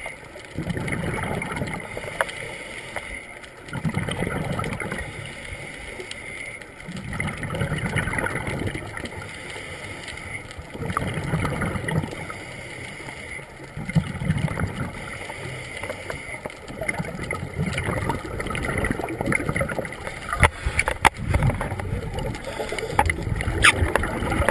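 Scuba diver's regulator breathing underwater: rumbling, bubbly exhalations that swell and fade in a slow rhythm, about one breath every three to four seconds. A few sharp clicks sound near the end.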